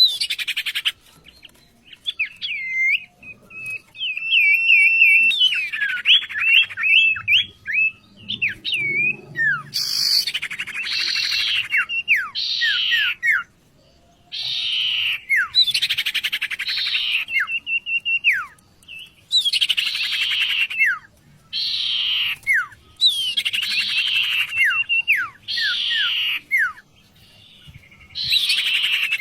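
Cage songbird singing a 'sirtu' master song: varied whistles and short trills at first, then from about a third of the way in, repeated harsh chattering phrases, each ending in quick falling whistles, roughly every two seconds.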